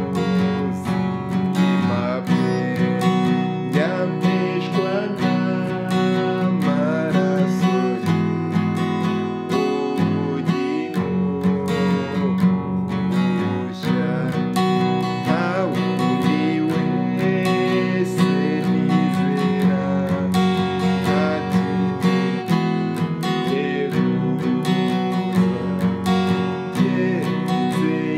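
Acoustic guitar strummed in a steady rhythm, moving from a G chord to C, with a man singing a hymn melody along with it.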